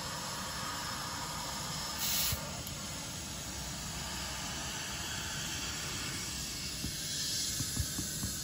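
Compressed air hissing as an inner tube is partly inflated inside a three-wheeler tire, with a short, louder blast of air about two seconds in.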